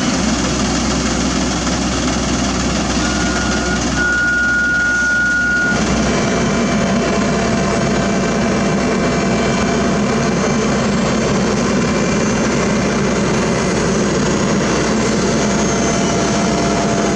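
Diesel engines of heavy road-paving machinery running steadily. A steady high tone sounds for a couple of seconds, about three seconds in.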